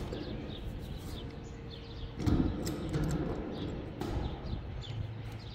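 Small birds chirping, short downward chirps repeating over and over, with a couple of dull knocks about two seconds in and again near four seconds.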